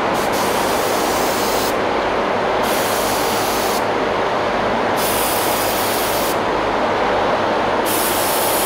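Gravity-feed paint spray gun hissing in four separate trigger pulls of a second or so each, test-spraying its fan pattern in stripes onto the wall, over the steady noise of a paint booth exhaust fan.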